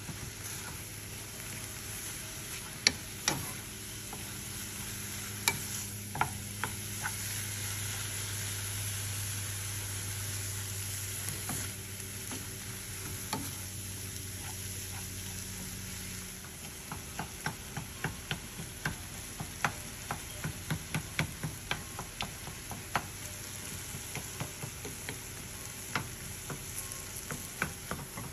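Ground meat sizzling in a nonstick skillet as it is stirred and broken up, with scrapes and sharp taps of the spatula against the pan. From about halfway the taps come quickly, roughly two a second, as the meat is chopped apart. A low hum under the first half stops partway through.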